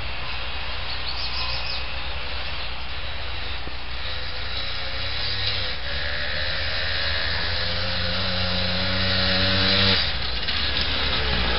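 ATV engine running, its pitch climbing slowly over several seconds and then dropping abruptly near the end, over a steady low hum and rushing noise.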